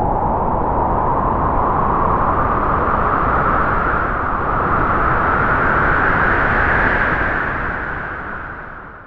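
A long gust of wind blowing with a hollow whistling tone that slowly rises in pitch, then dies away near the end.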